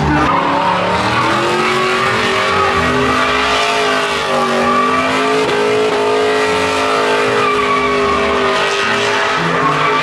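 Pickup truck engine held at high revs during a burnout and donuts, its pitch wavering up and down, with the rear tyres spinning and squealing against the pavement.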